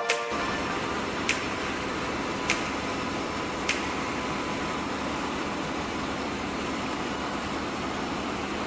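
Steady running-machinery noise in a ship's engine room, an even hum with a faint steady tone in it. A sharp click sounds about every 1.2 seconds, four times in the first four seconds.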